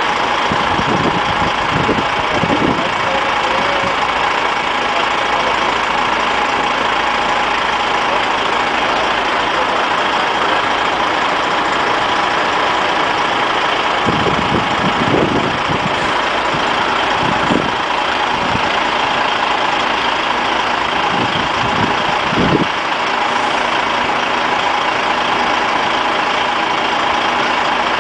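Diesel engines of a queue of DAF XF truck tractor units idling together in a steady drone.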